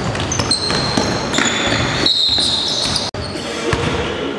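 A basketball bouncing on a wooden-sprung gym court, with many short, high sneaker squeaks from players running and stopping on the floor, one squeak held for about a second near the middle.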